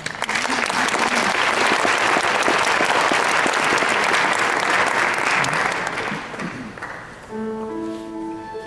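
Audience applauding, loud at first and dying away after about six seconds. Instrumental music with long held notes begins near the end.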